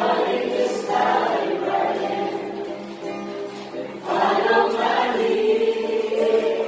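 A group of voices singing a song together to acoustic guitar, with new sung phrases coming in about a second in and again about four seconds in.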